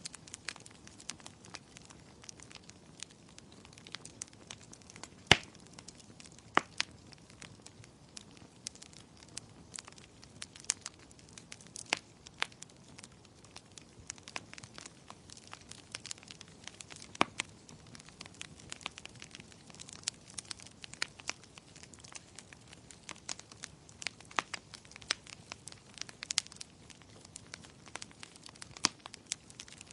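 Wood fire crackling, with irregular sharp pops and snaps, the loudest about five seconds in, over a soft steady hiss of rain.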